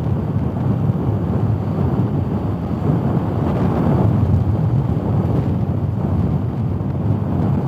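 Wind rushing over the microphone and road rumble from a BMW R 1250 GS Adventure motorcycle riding a gravel road. It is a steady low rushing noise that swells slightly about halfway through.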